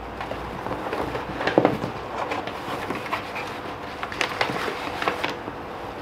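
Paper letters being pulled out of the packaging and unfolded by hand: a run of irregular rustles and crinkles.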